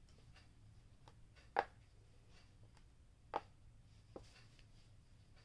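Three short, faint taps as pom-pom player markers are set down on a volleyball coaching board, over quiet room tone; the first tap is the loudest.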